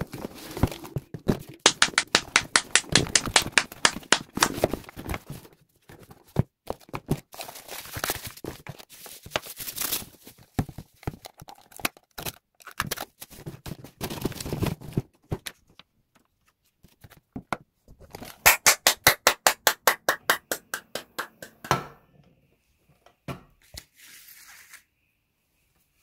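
Unboxing sounds: cardboard and plastic wrapping handled and torn, with knocks and two runs of rapid, even crackling, one near the start and one about two-thirds through.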